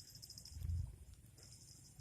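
Outdoor animal sounds by a river: a high, pulsing insect-like trill that drops out for a while and returns near the end, and one deep, low call or thud swelling just past the middle, part of a series repeating about every two seconds.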